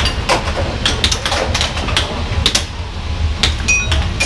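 Air hockey game: the puck clacking against the mallets and the table's rails in quick, irregular knocks, about two or three a second, over a steady low hum.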